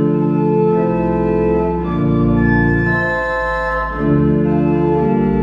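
Church organ playing a slow prelude: sustained chords that change every second or two, with deep pedal bass notes entering about a second in.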